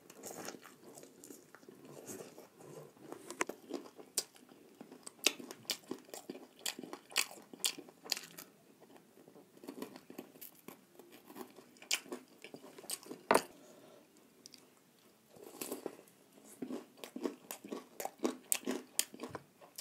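Close-miked chewing and biting of fried chicken lollipop: repeated crisp crunches and wet mouth clicks with short pauses between them. A sharp click about two-thirds of the way through is the loudest.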